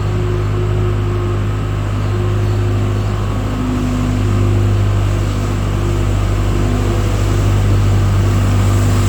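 Skid loader engine running at a steady speed while it scrapes manure down a barn alley.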